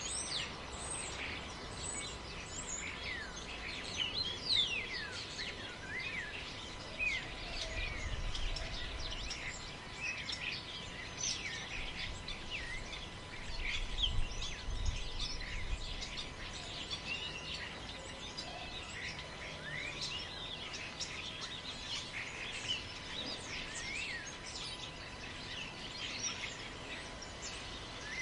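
Many small birds chirping and calling over a steady forest background, with low gusts of wind rumbling about eight seconds in and again around fourteen seconds.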